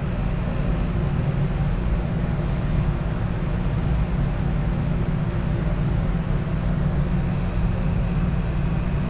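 Steady low drone of running lab machinery, even and unbroken.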